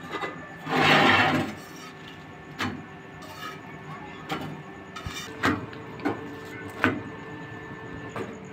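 A metal spatula scraping and tapping on an iron tawa as a roti is turned and pressed. There is one long rasping scrape about a second in, then several short clinks and taps.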